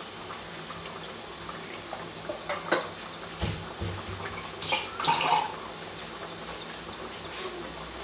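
Sweet corn curry simmering in a pot: a steady low bubbling with a few soft plops and splutters of thick gravy between about two and five and a half seconds in.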